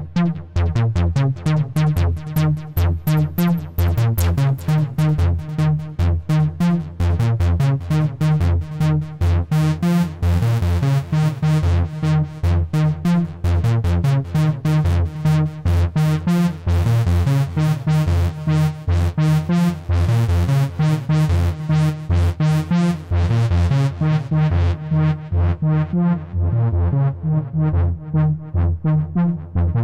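Alisa 1377 Soviet analog synthesizer playing a fast, repeating sequence of short bass notes. Its tone grows brighter in the middle and duller again near the end as the filter and envelope knobs are turned.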